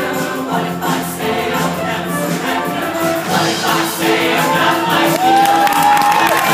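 High school show choir singing with musical accompaniment, with a long high note held near the end.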